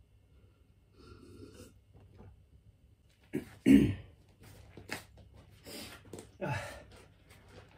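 A man's heavy breathing, with a loud forceful exhale or grunt and a second shorter one, plus a few light knocks, as he grips push-up bars on an exercise mat and moves into a plank.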